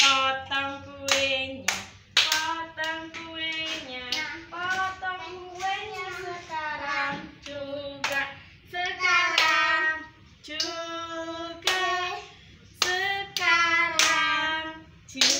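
Voices singing a birthday song, with hand claps along.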